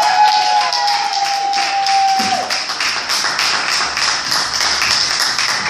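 Audience applauding, a dense patter of handclaps. For the first two seconds or so, one voice holds a long, drawn-out whoop that then breaks off.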